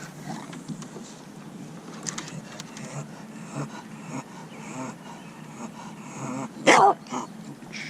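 Bulldog barking once, a short loud bark near the end.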